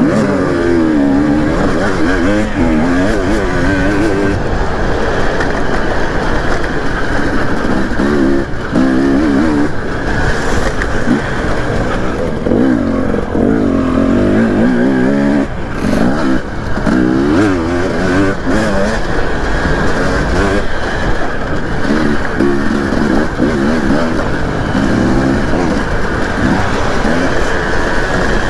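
Dirt bike engine heard from on board, its pitch climbing and dropping back again and again as the rider accelerates, shifts and backs off around a motocross track.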